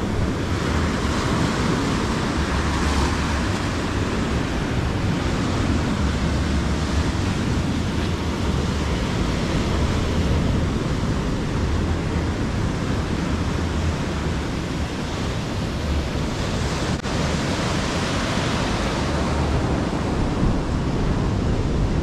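Sea surf washing up the sand and breaking against rocks, swelling and easing as each wave comes in, with wind rumbling on the microphone.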